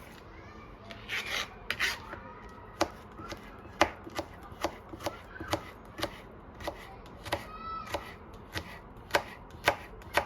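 Kitchen knife chopping on a cutting board: sharp, even strokes, a few at first and then about two a second from about three seconds in.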